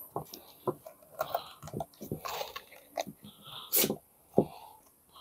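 Silicone mold being flexed and twisted by hand to pop out cured epoxy resin pieces: an irregular run of crunching clicks and crackles as the resin pulls away from the silicone, with the loudest cracks near the end. The mold is giving out, with the resin sticking to it, which the owner puts down to too much heat.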